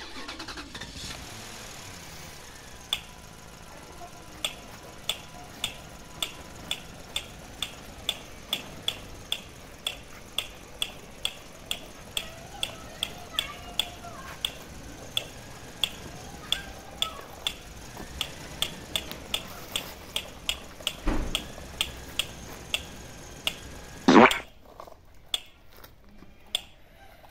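Plastic toy tractor being pulled along concrete, clicking at a steady rate of about two clicks a second. One loud scrape or knock near the end.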